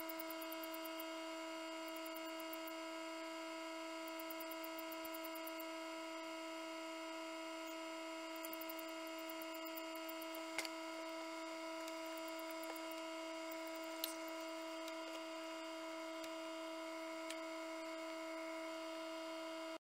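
Steady electric hum of an egg incubator's motor or fan, one even pitched drone with overtones. Two faint clicks sound about ten and fourteen seconds in.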